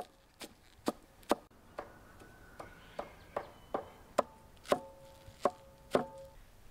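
Knife chopping fresh herbs on a wooden cutting board: sharp knocks of the blade on the wood, about two a second.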